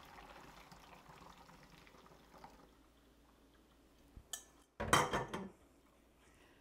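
Almond milk trickling faintly through a funnel into a glass jar, dying away after about two and a half seconds. A little over four seconds in, a light click and then a short clatter of kitchenware being handled and set down.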